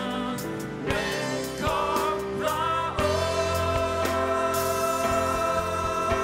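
Man singing a Thai Christian worship song with a live band of keyboard and bass guitar, holding one long note from about three seconds in.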